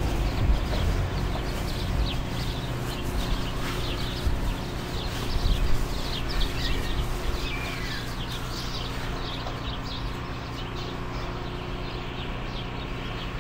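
Footsteps crunching through deep snow, an irregular run of crisp crunches that thins out about two-thirds of the way through, over a steady low hum.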